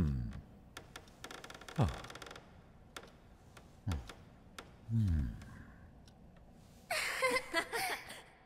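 Film sound effects: four short low tones, each dropping quickly in pitch, at the start and about two, four and five seconds in. A patter of fast clicks comes between the first two, and a brighter, hissy burst with wavering tones follows near the end.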